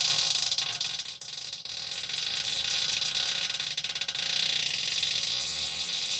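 A long, unbroken fart with a rapid crackling flutter, dipping briefly about a second in.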